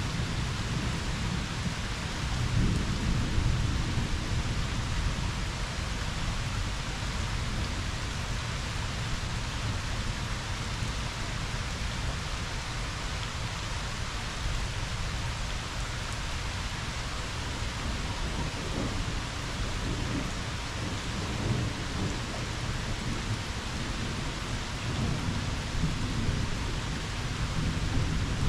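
Steady rain falling, with low rumbles of thunder underneath that swell about three seconds in and again near the end.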